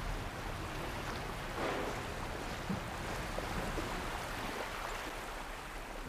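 Steady wash of sea water with some wind.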